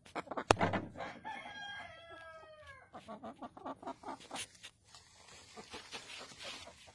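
A rooster crows once, a call of about a second and a half that falls in pitch at its end. A sharp knock comes just before it, about half a second in, and scattered clucks and clicks follow.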